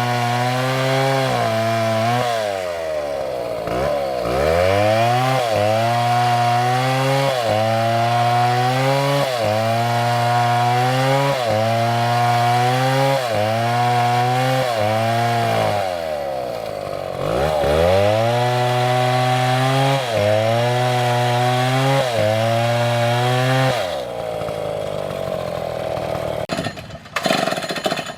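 STIHL chainsaw cutting into oak, its engine note dipping and recovering about once a second as the chain loads up in the wood. Twice it slows sharply and then revs back up. About four seconds before the end the engine note stops and a rougher, quieter noise follows.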